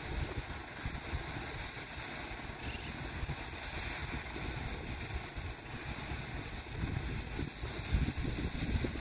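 Wind buffeting the microphone: irregular low rumbles over a steady hiss, with the strongest gust about eight seconds in.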